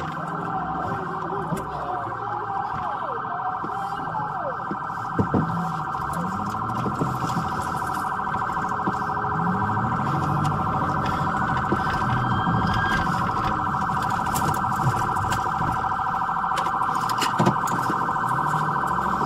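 Police car siren sounding a fast, steady warble, with a lower rising-and-falling tone sweeping in now and then and a few sharp knocks, the loudest about five seconds in.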